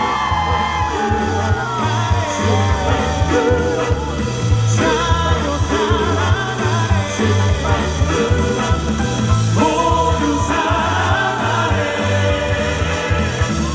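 Live rock band music with a steady drum and bass beat under long held, wavering melodic lines and singing.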